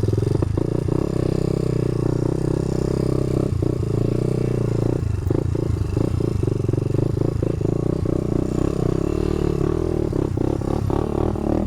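Honda dirt bike engine running at fairly steady revs under load. Repeated knocks and clatter join it from about five seconds in, most of them in the last few seconds.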